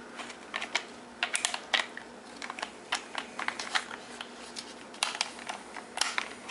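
Cartridges being pressed one at a time by hand into a 10-round AR-15 Hexmag magazine: sharp metal-on-plastic clicks in irregular small clusters.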